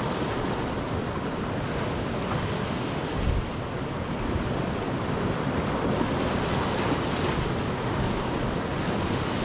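Sea waves breaking and washing over shore rocks, a steady surf wash, with wind rumbling on the microphone and one brief low gust a little over three seconds in.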